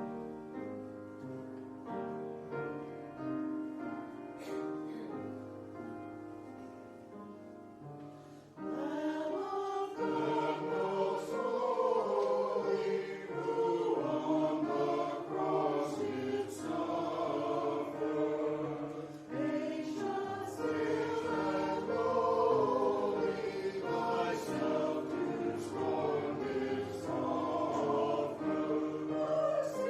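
Choir singing church music: a soft, fading sustained passage, then about nine seconds in the choir comes in much louder and carries on.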